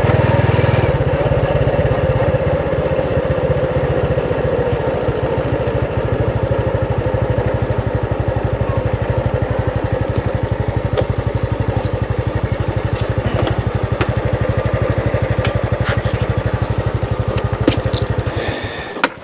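Motorbike engine running at low speed with a steady, rapid pulsing beat as the bike is ridden slowly to a parking spot. The engine dies away shortly before the end, followed by a few sharp clicks.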